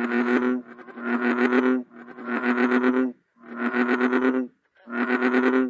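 A chorus of American bullfrogs, several frogs answering each other with five low calls in a row, each under a second long with short gaps between.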